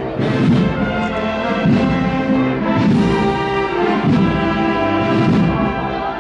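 Brass band playing a slow Holy Week processional march: sustained brass chords over a drum stroke about every second.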